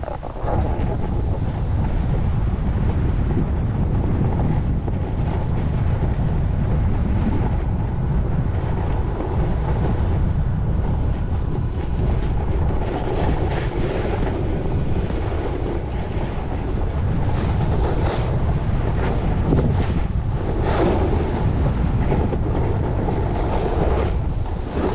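Steady wind buffeting the microphone of a camera carried by a skier moving fast downhill, a heavy low rumble, with the skis hissing and scraping over packed snow in repeated swells as the skier turns.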